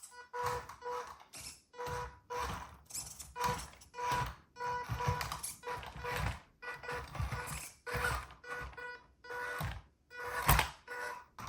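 Background music with a steady beat and a repeated note.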